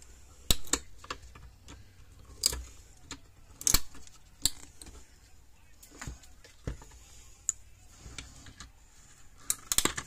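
Irregular sharp clicks and clacks of small tools and hardware being handled on a workbench, with a quick cluster of clicks near the end.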